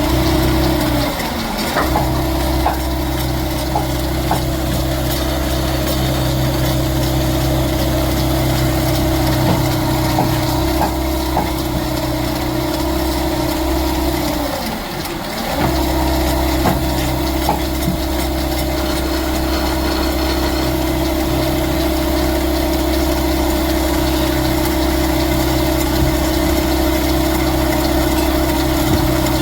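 Motor of a woodworking machine running steadily with a strong even hum. Its pitch sags and recovers twice, about a second and a half in and again about halfway through, as it briefly bogs under load cutting wood.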